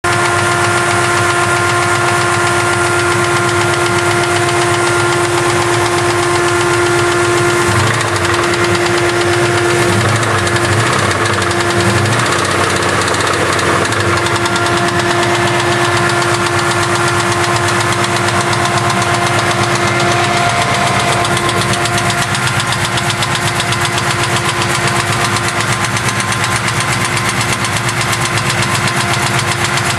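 A 455 V8 engine running near idle with a fast, rhythmic knock or tick over its steady running, a bad sound that points to an internal fault. The engine swells briefly a few times about a third of the way in.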